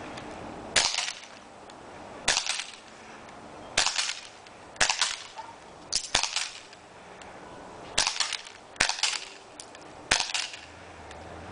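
CO2-powered, non-blowback H&K USP airsoft pistol firing single semi-automatic shots: about eight sharp cracks, one every second or so.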